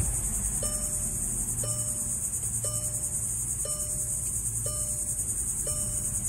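A 2018 Volkswagen Passat GT's 3.6-litre VR6 idles with a steady low rumble just after start-up. A warning chime sounds in the cabin about once a second. A steady high-pitched insect buzz carries throughout.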